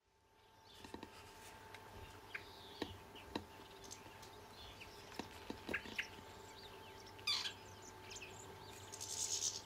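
Garden birds chirping and calling in short scattered notes, with a few sharp clicks, over a faint steady hum.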